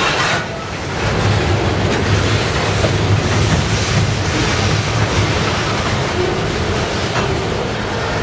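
Freight train of boxcars rolling past: a steady rumble of steel wheels on the rails with a few sharp clacks over rail joints. A faint thin wheel squeal comes in near the end.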